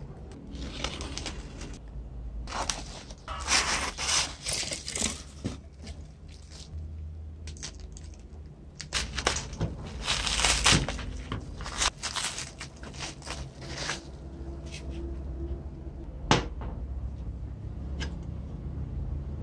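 A taped cardboard parcel and its plastic wrapping being torn open and crinkled by hand, in irregular bursts through the first fourteen seconds or so. One sharp knock comes about sixteen seconds in as the metal pencil sharpener is handled, all over a low steady hum.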